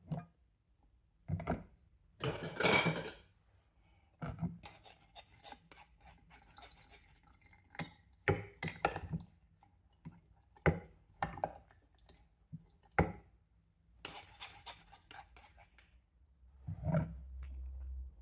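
Kitchen utensils and dishes being handled: scattered clinks, knocks and scraping at irregular intervals. A denser scrape comes about two seconds in and a rapid run of small clicks about fourteen seconds in, with a low rumble near the end.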